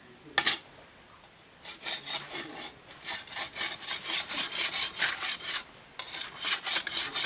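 A sickle blade being sharpened by hand, scraped back and forth in quick rasping strokes, about three or four a second. There is one lone scrape about half a second in, then a steady run of strokes from just under two seconds in, with a brief pause about six seconds in.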